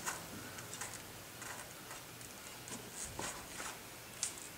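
Faint scattered metallic clicks and light taps of a wrench being worked on a front brake caliper's 5/8-inch mounting bolts, with a slightly heavier knock about three seconds in and a sharp click near the end.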